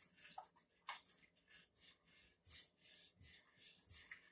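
Faint, repeated scraping of a spoon stirring a thin flour-and-water teriyaki sauce in a mixing bowl, two or three strokes a second.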